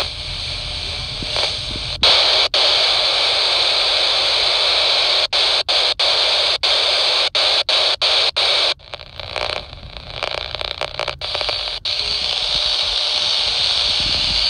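GRE PSR-100 handheld scanner's speaker hissing static on a weak 49 MHz carrier with the squelch open, cutting out for an instant many times. From about nine to twelve seconds in the hiss breaks up and thins, then steady hiss returns: the signal is near the point of dropping out.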